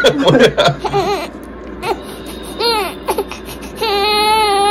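Young baby fussing and crying as a pacifier is offered and slips out of its mouth: a few short fussy sounds and clicks, then two brief rising-and-falling wails, then a longer held cry near the end.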